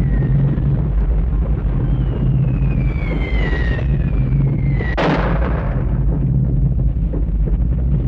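Cartoon sound effects: a heavy continuous rumble with several high whistles gliding downward in pitch, then a sudden explosion-like crash about five seconds in.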